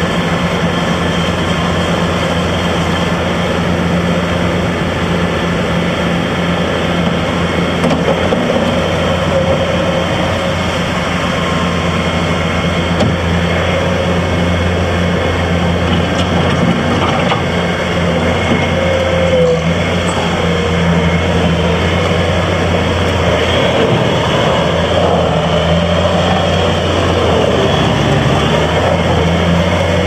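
2015 Bobcat S650 skid steer loader's diesel engine running steadily as the loader works its bucket and drives. The engine note shifts briefly about eight seconds in and again near the end.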